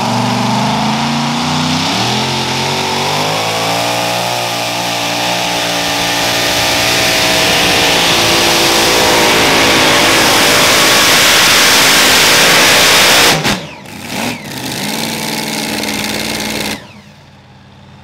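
Supercharged pulling tractor engine revving up off the line and running wide open through a hook down the track for about ten seconds. The throttle is then chopped suddenly, with a short blip after. The engine settles lower for a couple of seconds, then cuts off near the end.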